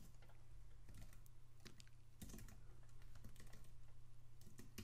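Faint typing on a computer keyboard: irregular keystroke clicks, over a steady low hum.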